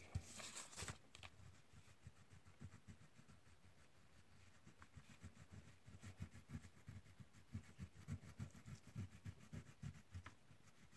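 Faint scrubbing of a dark brown crayon rubbed back and forth on paper, several quick strokes a second, getting steadier in the second half.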